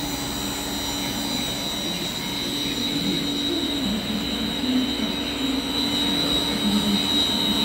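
Weiler Omni V220 industrial meat grinder running on its electric motors and gear drive: a steady machine hum with a thin, constant high-pitched whine over it, growing slightly louder toward the end.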